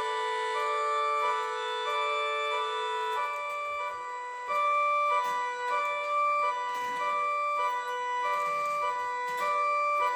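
3D-printed mini 3T22 air raid siren sounding its high-low signal: two steady chords from its 12-port and 10-port rotors, switching back and forth roughly every half second. A steady lower tone runs underneath for about the first three seconds, then stops.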